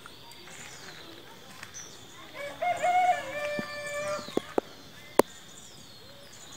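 A large fowl calling: one long call of about two seconds near the middle, held at one pitch and dropping slightly at the end. Three sharp clicks follow, the last and loudest about five seconds in, while small birds whistle faintly in the background.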